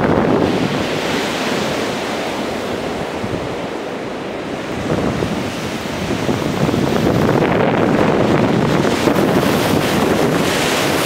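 Storm-force gale wind blowing through trees and buffeting the microphone. It eases slightly about four seconds in, then gusts up again.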